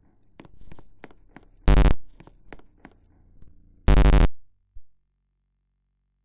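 A run of sharp clicks, about ten in three seconds, broken twice by a loud buzz about a third of a second long.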